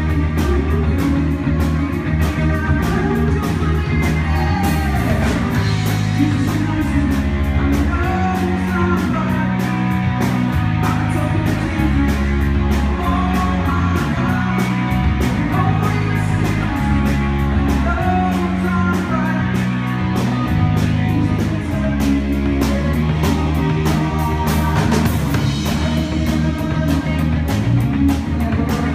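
Live rock band playing, heard through the stage monitors: a bass line stepping between held notes under guitar, with a drum kit keeping a steady beat.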